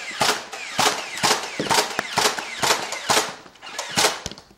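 Nerf Stampede, a battery-powered fully automatic foam-dart blaster, firing continuously at about two shots a second, each shot a short sharp burst of mechanism noise.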